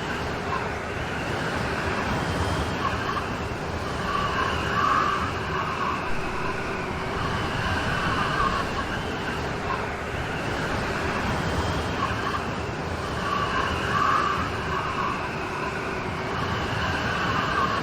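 Steady rain storm: an even, continuous hiss of falling rain with slow swells in level.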